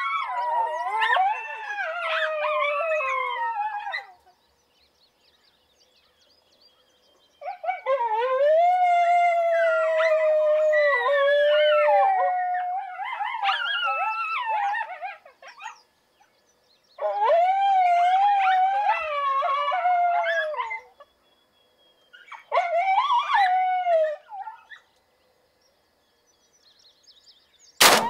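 Coyotes howling and yipping, several voices overlapping, in four bouts with short quiet gaps between them. Near the end comes a single shotgun blast.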